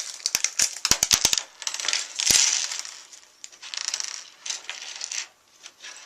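Small metal assembly hardware (screws) clinking and rattling as it is handled: a quick run of sharp clicks in the first second and a half, a louder clatter about two seconds in, then softer rustling.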